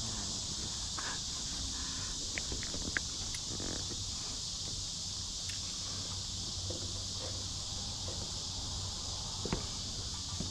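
Steady high-pitched insect chorus, with a low steady rumble underneath and a few faint clicks and knocks scattered through.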